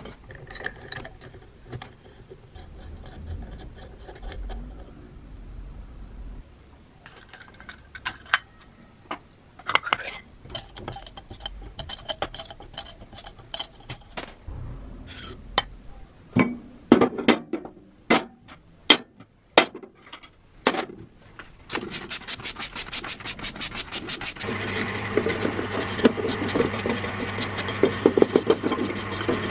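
Hand-tool work on a rusty steel saw attachment: a socket wrench clicks on the blade nut and a screwdriver scrapes and pries at rust, with several sharp metal knocks about two-thirds in. Near the end a parts washer runs with a steady low hum and a stream of solvent, while a brush scrubs the part.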